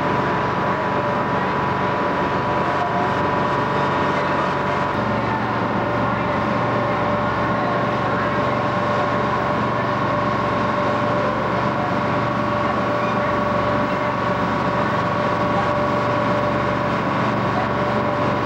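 Passenger ferry's engine running steadily under way, heard on board: a constant low drone with a steady whine over it, the drone growing fuller about five seconds in.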